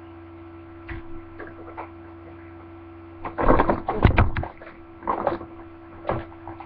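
Steady electrical hum with a few faint clicks, then a loud cluster of thumps and rustling about halfway through and two shorter ones near the end, as a person moves in close and sits down.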